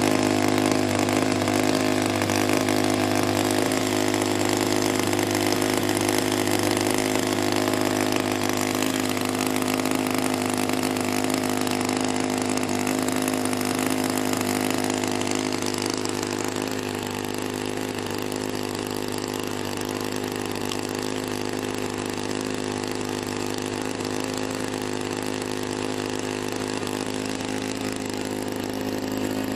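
Saito 91 four-stroke glow engine of a model P-51 Mustang, freshly overhauled, running steadily at one speed without revving. It gets a little fainter about halfway through.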